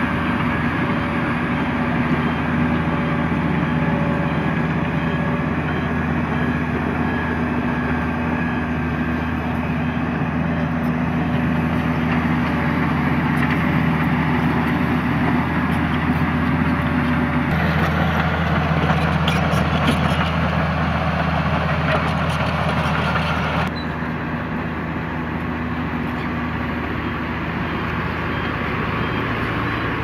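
Diesel engine of a Hamm 311D padfoot vibratory roller working close by, running steadily with a low, even drone. About halfway through the sound turns louder and rougher for several seconds, then drops suddenly.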